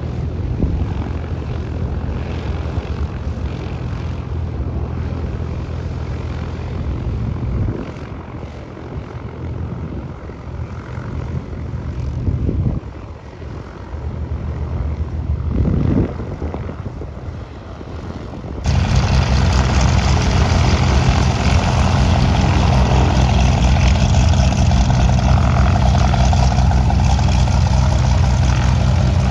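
Piston propeller aircraft engine and propeller drone, a steady low engine note. It fades somewhat about a quarter of the way in, then turns abruptly much louder and fuller about two-thirds through and stays loud.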